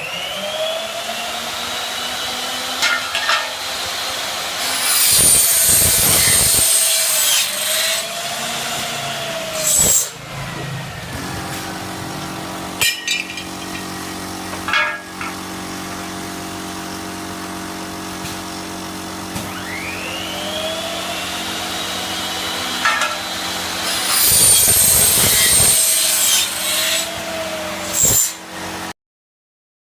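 A 305 mm aluminium cutting saw: the motor spins up with a rising whine, and the blade cuts through aluminium twice, each cut a loud, high-pitched screech lasting about two seconds, around 5 s and again around 24 s in. The saw runs steadily between the cuts, and the sound stops abruptly just before the end.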